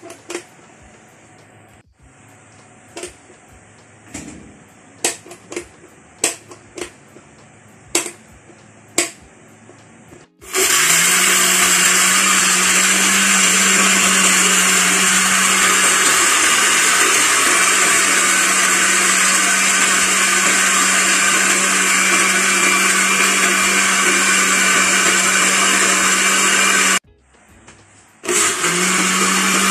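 A few sharp clicks and knocks, then about ten seconds in an electric countertop blender's motor starts and runs loud and steady, blending milk, Milo powder and ice cubes into a milkshake. Near the end it stops for about a second and starts again.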